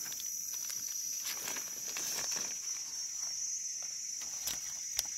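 Steady high-pitched drone of forest insects, with faint rustling in dry leaf litter and a couple of soft clicks near the end as a mushroom is cut and picked by hand.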